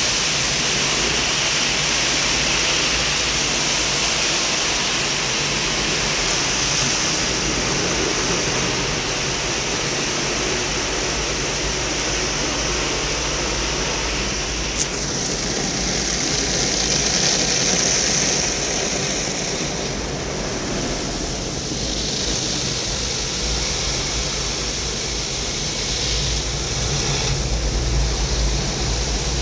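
Automatic car wash heard from inside the car: a steady rush of water spray and spinning brushes on the bodywork, with a low rumble underneath. One sharp click about fifteen seconds in.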